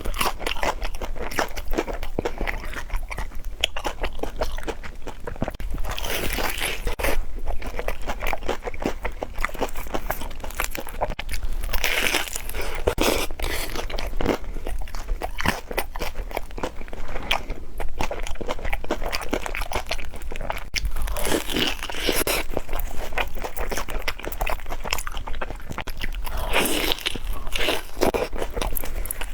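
Close-up crunching and chewing of deep-fried glutinous-rice-coated banana, the crisp fried coating crackling with each bite, with louder bites every few seconds.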